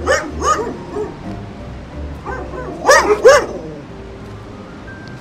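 A dog barking in short, high yips: a quick run at the start and two loud barks about three seconds in, over background music.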